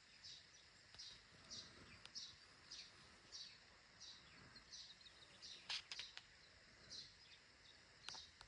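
Faint bird chirps: short, high notes falling slightly in pitch, repeated about twice a second, with a few soft clicks among them.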